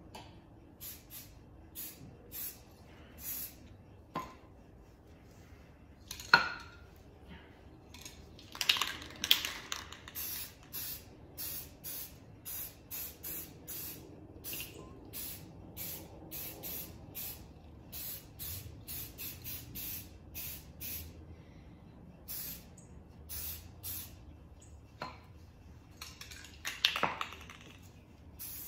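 Aerosol spray paint cans hissing in dozens of short squirts, one after another, as a freehand camouflage pattern is laid down. A few clinks and clanks of the metal cans being handled, the loudest about six seconds in and another cluster near the end.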